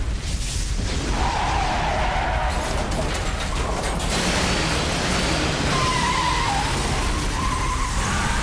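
Animated car-chase sound effects: car engines revving hard, with wavering tyre squeals twice. The engine noise grows fuller about four seconds in, as the accelerator is floored.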